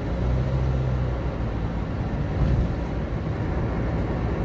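A car driving at steady speed, heard from inside the cabin: a continuous low engine and road hum.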